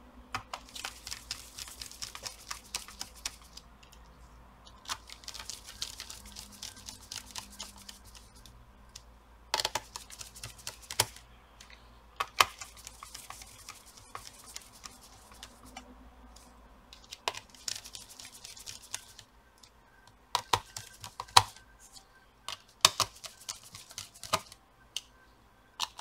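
Small screws being driven back into a laptop's CPU/GPU cooler with a precision screwdriver: bursts of quick, light metallic clicks and scratching, broken by a few sharper taps.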